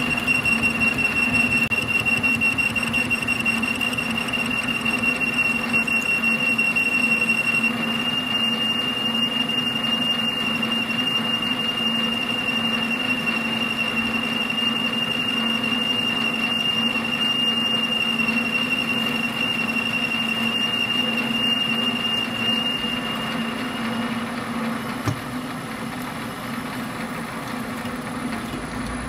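Metal lathe boring a hole with a long-overhung boring bar, which gives off a steady high-pitched squeaking: chatter from the bar's long stick-out. The squeak stops shortly before the end, leaving the lathe running with its steady hum.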